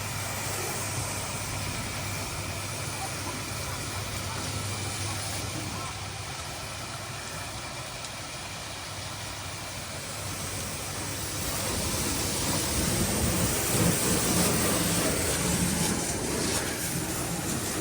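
Heavy diesel engine running steadily. About twelve seconds in it gets louder and works harder, as if under load or revving, then eases slightly near the end.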